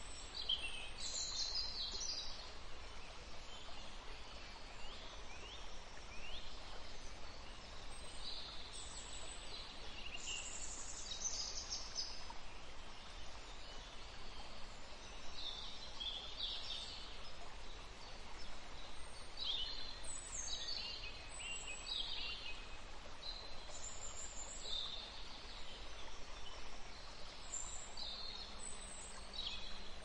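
Songbirds chirping and trilling in short, high calls that come in clusters, over a steady background rush of a distant waterfall.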